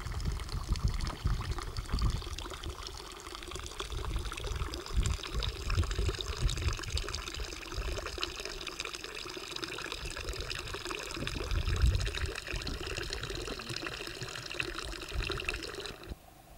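Water running steadily from a village fountain into a concrete trough, with irregular low gusty rumbles on the microphone. The sound cuts off suddenly shortly before the end.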